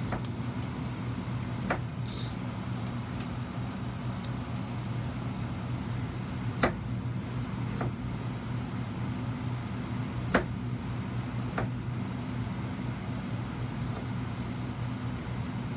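Kitchen knife slicing a firm white root vegetable on a plastic cutting board. The blade knocks sharply on the board about six times at uneven intervals, two of the knocks louder than the rest, over a steady low hum.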